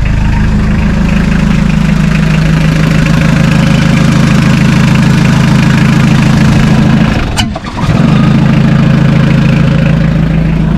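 Mitsubishi 4D56 four-cylinder diesel engine idling steadily just after a quick start, its hard-start fault cured by two new glow plugs. The sound dips briefly with a click about seven and a half seconds in.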